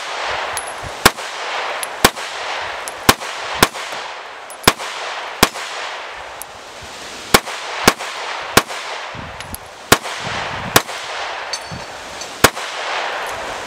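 Sig P365 X Macro 9mm pistol firing about a dozen shots, one at a time, roughly a second apart at an uneven pace, over a steady background hiss.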